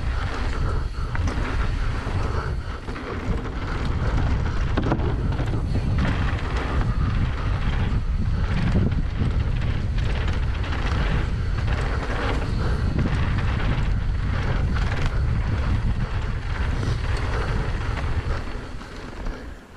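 Wind rushing and buffeting over the microphone of a downhill mountain bike descending a dirt trail at speed. Tyre noise and scattered knocks and rattles come from the bike over the bumps.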